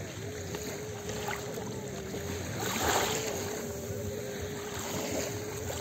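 Small waves lapping on a sandy shore, with one wave washing in louder about three seconds in, over a faint steady hum.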